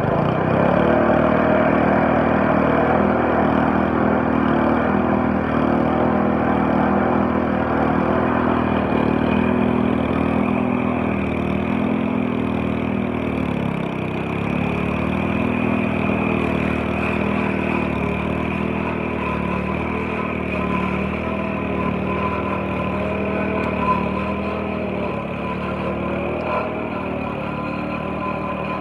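Walk-behind lawn mower engine running steadily as it cuts grass, loudest near the start as it passes close and easing off a little as it moves away. About halfway through its pitch dips briefly and recovers.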